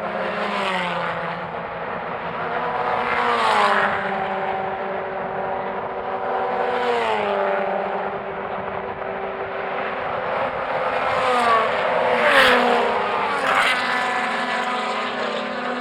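Historic formula racing cars going past one after another at speed. About six pass-bys, each engine note dropping in pitch as the car goes by, with the engines of other cars running underneath throughout. The loudest pass comes about twelve seconds in.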